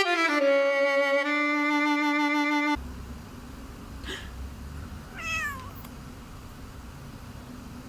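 Held musical notes, like a bowed string, stop abruptly a little under three seconds in. A couple of seconds later a domestic cat gives one short meow that falls in pitch, after a fainter brief call just before it.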